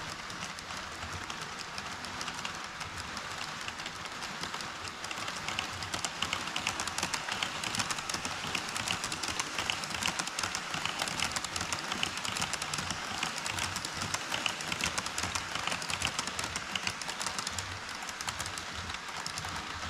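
HO scale model train running on the layout's track, with a dense, rapid clicking from its wheels on the rails that grows louder about six seconds in and eases off near the end.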